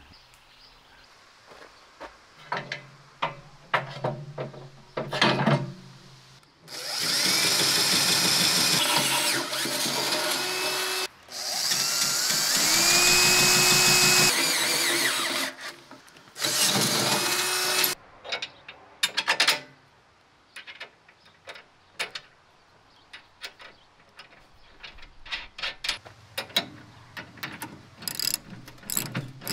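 Power drill with a twist bit drilling into the steel lip of a tractor loader bucket, in three runs with a short break between each, the motor's pitch rising as it spins up; the holes are for bolting on a tooth bar. Scattered tool clicks come before and after, and a socket ratchet clicks rapidly near the end as a bolt is tightened.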